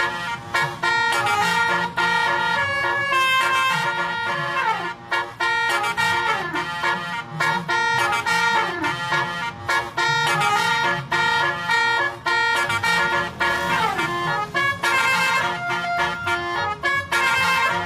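Bus telolet horn, a Basuri-type multi-trumpet air horn, playing a melody as a string of held notes, several ending in a downward slide in pitch.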